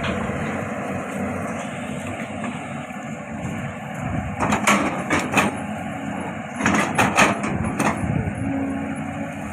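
Cat 320DL long-arm excavator's diesel engine running steadily under work, with two clusters of sharp cracking knocks, about four and a half seconds in and again about seven seconds in.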